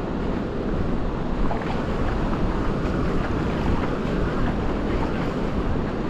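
Wind buffeting the microphone over the wash of sea surf, a dense, steady rush with no pauses.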